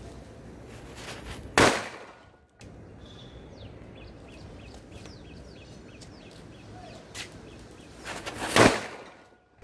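Two single bangs from striped bijili firecrackers (Asok Fireworks, Ant brand), one about a second and a half in and one near the end, the second preceded by a brief fizz of the burning fuse. Birds chirp faintly between the bangs.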